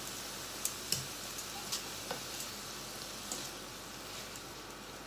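Food sizzling steadily in a frying pan as it is stirred, with a few light clicks of tongs and a wooden spatula against the pan.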